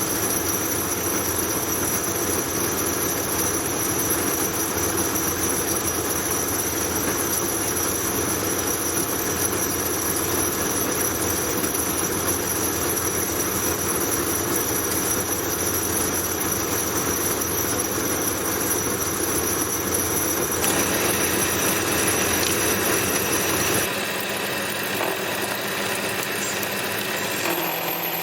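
Homemade Gingery milling machine running and milling a piece of aluminium stock down to size, a steady loud machining noise. Near the end the sound changes and the low rumble drops away.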